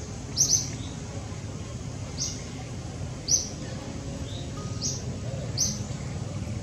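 Short, high, downward-sliding bird chirps, repeated about once a second, over a steady low background hum.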